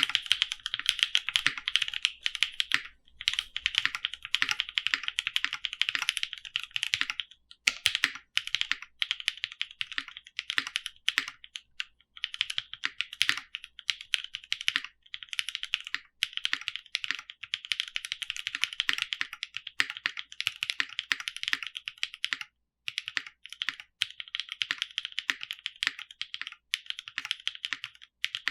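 Typing on a Monokei KFE CE tenkeyless custom mechanical keyboard with Ubecakes switches (Lavender and Cream) and GMK First Love keycaps, with no desk mat under it. The keystrokes come fast and continuous, broken by brief pauses every few seconds.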